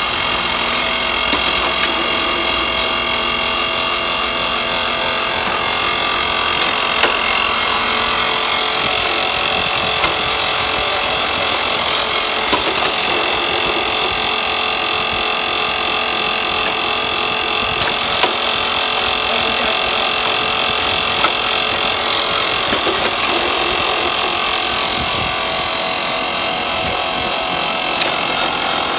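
Vacuum coffee-powder packing machine running under test: a loud, steady mechanical whir with several sustained tones. Occasional sharp clicks from its moving stations come every few seconds.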